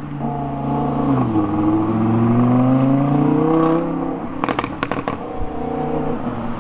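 Audi R8's V10 engine accelerating hard away. The revs drop once about a second in, as at an upshift, then climb steadily for a few seconds. A quick cluster of exhaust crackles and pops follows about four and a half seconds in as the revs fall.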